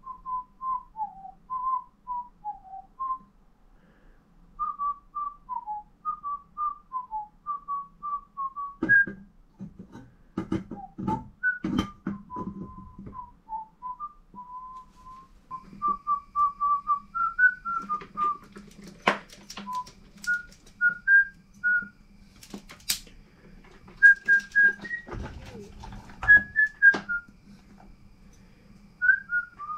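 A tune whistled in short, hopping notes. It is broken by scattered knocks and sharp clicks, first about a third of the way in and again through the latter half.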